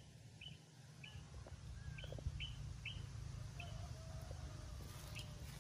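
A small bird calling with a run of short, high, down-slurred chirps, about two a second at first and then more sparsely, over a faint low rumble.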